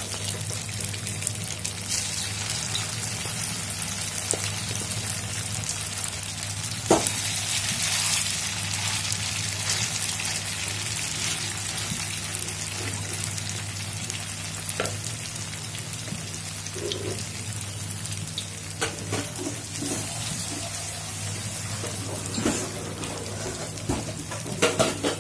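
Tofu and minced-chicken nugget patties frying in hot oil in a wok: a steady sizzling hiss. A few short sharp knocks, the loudest about a third of the way in, where the spoon touches the wok as more batter goes in.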